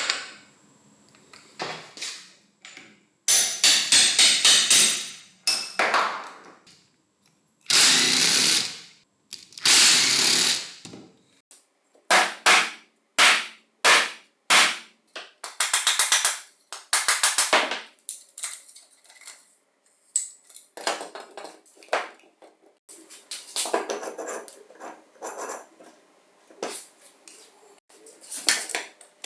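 Hand work on metal angle grinder parts: bursts of scraping and clattering, some fast rattling runs of clicks and some longer scrapes about a second long, with short pauses between.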